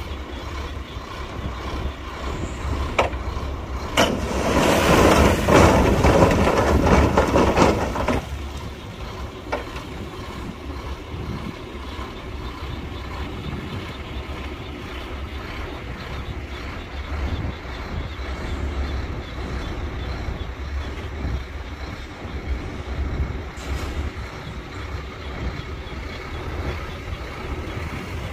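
Heavy diesel machinery running at a steady low rumble. A loud rushing noise lasts about four seconds, starting about four seconds in, and a few sharp knocks come through now and then.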